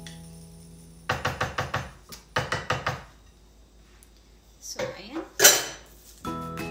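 Wooden spoon knocking against the rim of a ceramic baking dish in two quick runs of taps, shaking off marinade. About five seconds in comes a louder, noisier clatter, the loudest sound here.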